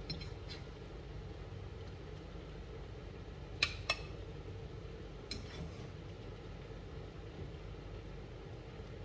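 Metal ladle clinking against a wok while stirring, two sharp clinks about three and a half seconds in and lighter knocks near the start and a little after five seconds, over a steady low hum.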